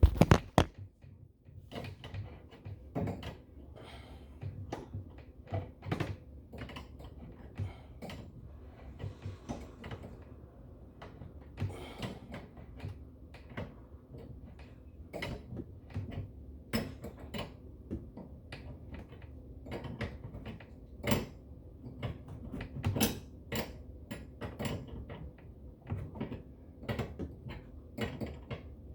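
Irregular light clicks, taps and knocks of tools and faucet parts being handled, some louder knocks among them.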